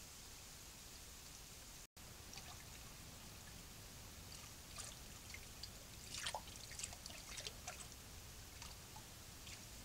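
Raccoons wading and dabbling in shallow stream water: scattered small splashes and drips, busiest in the middle, over a steady faint hiss.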